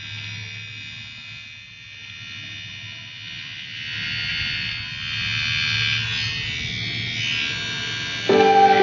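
Portable mini electric shaver buzzing steadily as it runs over forearm hair, getting louder about four seconds in. Near the end, loud plucked-string music comes in over it.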